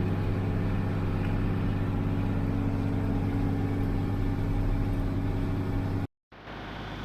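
Tractor engine running steadily at an even speed under way, a low, constant drone. About six seconds in it cuts off abruptly, and after a brief gap a quieter engine idles.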